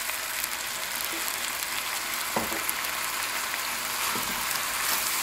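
Pork and vegetables sizzling steadily in a hot cast iron wok as soy sauce is poured in and the food is stirred with a spatula. A single sharp knock about two and a half seconds in, and a fainter one a little later.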